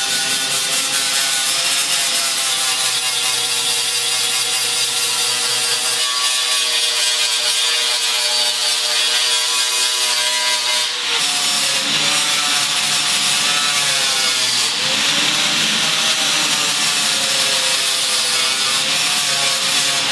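Power tool cutting sheet metal, a steady loud whine with a harsh hiss whose pitch sags and wavers as the cut loads it, notably about eleven seconds in and again a few seconds later.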